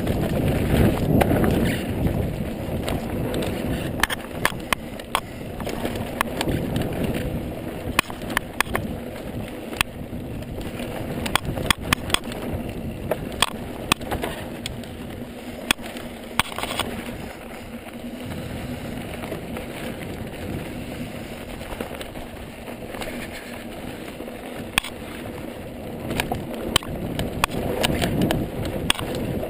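Ibis Mojo mountain bike riding down dry dirt singletrack: a steady rumble of tyres on dirt, broken by frequent sharp clacks and rattles from the bike over rough ground. It is loudest in the first couple of seconds and again near the end.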